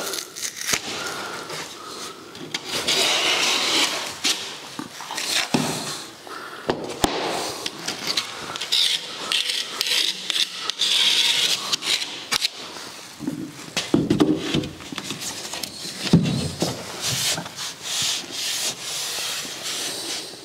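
A gypsum drywall board being cut by hand: bursts of scraping, rasping strokes with short clicks. Later come a few deeper knocks and thuds as the board is handled.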